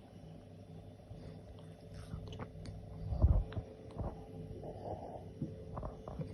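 A caracal sneezing once, a short sharp burst about three seconds in, with small clicks and rustles around it.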